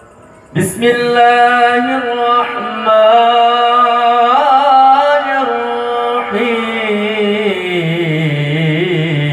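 A voice chanting Quranic recitation through a sound system in long, drawn-out melodic notes with wavering, ornamented pitch. It starts sharply about half a second in, and the pitch drops lower near the end.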